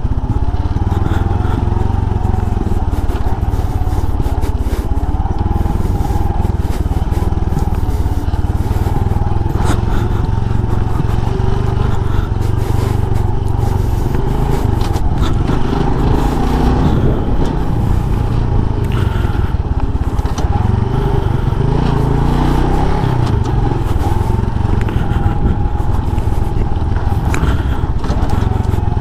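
Motorbike engine running steadily while riding over a rough off-road track, under a constant low rumble with scattered clicks and rattles.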